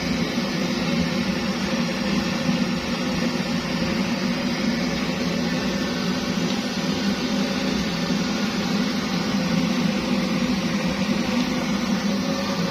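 Kerosene pressure stove (Primus-type babour) burning with a steady roar, even and unbroken.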